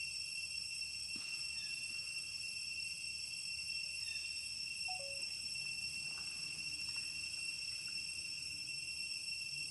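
A steady, high-pitched chorus of insects, several shrill tones held without a break.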